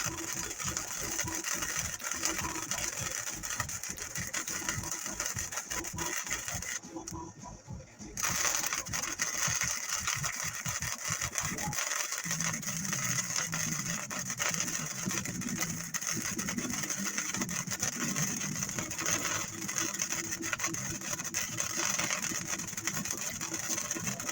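Wire-feed (MIG) welder laying a bead with a steady crackle and hiss. The arc breaks off about seven seconds in and strikes again about a second later.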